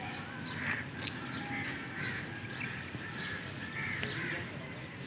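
Crows cawing repeatedly, a short call every half second to a second, over a steady low rumble.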